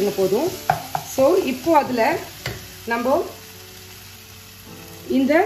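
Wooden spoon stirring and scraping sautéing mixed vegetables around a ceramic-coated pan, over a low sizzle. The stirring stops about three seconds in, leaving the quieter sizzle, and one more scrape comes near the end.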